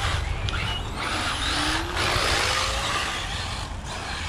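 Electric radio-controlled cars, an Arrma 1/8 buggy and a Traxxas Slash, driving on concrete: a loud rasp of motors and tyres that drops out briefly twice, with a rising motor whine about a second and a half in.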